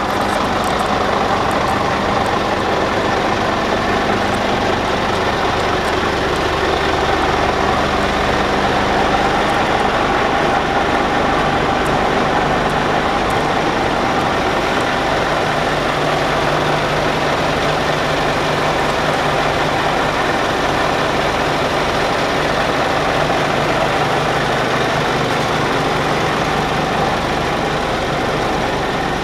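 Scania P400 8x4 tipper's 13-litre straight-six diesel engine running steadily, with the steel tipper body raised.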